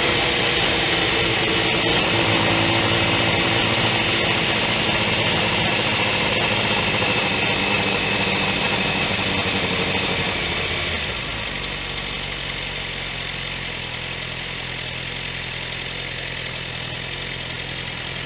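Motorcycle engine running with wind rush at road speed. About eleven seconds in, the sound drops quieter and lower as the bike slows.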